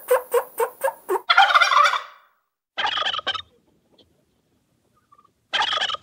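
Turkey gobbling. A quick run of pitched calls, about four a second, breaks into a rattling gobble about a second in. Two more short gobbles follow, one near the middle and one near the end.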